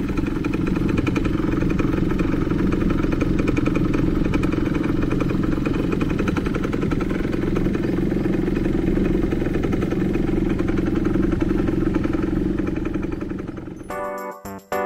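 Kymco quad ATV engine idling steadily while the quad stands stopped on the course. The idle fades out near the end as piano music comes in.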